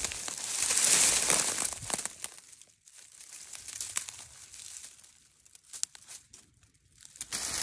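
Dry dead weeds and brush crunching and rustling as someone pushes through them, loud and dense for the first couple of seconds, then broken into scattered softer crackles.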